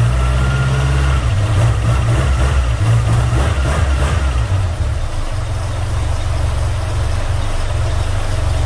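Car engine idling with a low, steady exhaust rumble. The engine speed wavers a little in the first few seconds, then holds steady.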